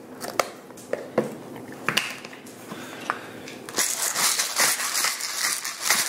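A few scattered clicks and taps, then from about four seconds in a handheld pepper mill grinding black peppercorns, a dense rapid crackle.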